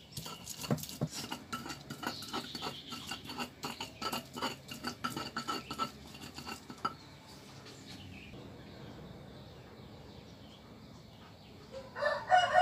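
A pestle pounding and grinding spice paste in a shallow stone mortar (cobek), with quick, irregular clacks of stone on stone for the first several seconds before it goes quieter. Near the end a rooster crows loudly.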